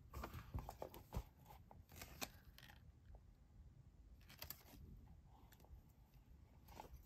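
Faint handling sounds of a pair of foam clogs being picked up and turned over by hand: a scatter of soft taps and clicks in the first couple of seconds, a brief rustle about four and a half seconds in, and a few small ticks near the end.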